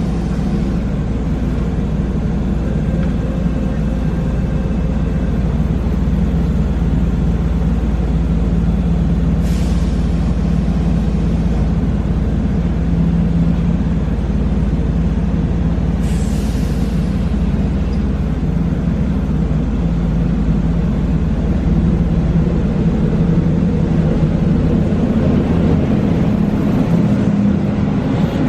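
Keihan electric train standing at the platform, its on-board equipment humming steadily, with short hisses of compressed air about nine and sixteen seconds in.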